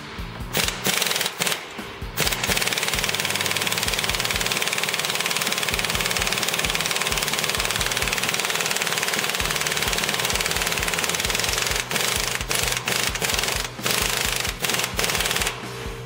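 Impact wrench hammering as it drives a U-joint puller's forcing screw to press a bearing cup out of a truck driveline yoke: a few short bursts, then a long continuous run, then short bursts again near the end.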